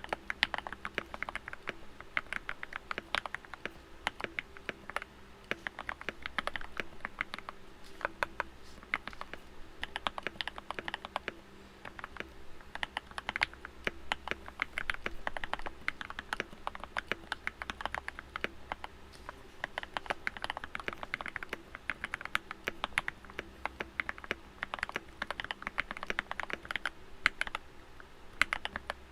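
Typing on a modded Keychron K2 mechanical keyboard with lubed and filmed Gateron Oil King linear switches and PBT keycaps, its case dampened with butyl sound deadener, a tape mod and switch pads: a fast, uneven run of keystrokes throughout. A steady low hum sits underneath.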